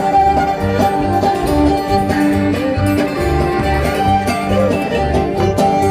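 Bluegrass band playing live: fiddle, banjo and acoustic guitar over an upright bass keeping a steady beat about twice a second.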